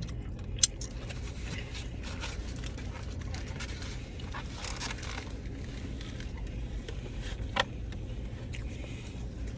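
Quiet eating sounds, chewing and food-wrapper rustling, over a steady low hum, with two sharp clicks, one just under a second in and one about three-quarters of the way through.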